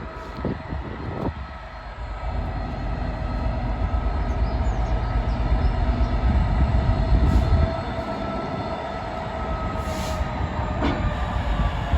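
Class 66 diesel locomotive with its two-stroke V12 engine running: a low rumble that builds over the first few seconds and drops back about eight seconds in, with steady whining tones above it.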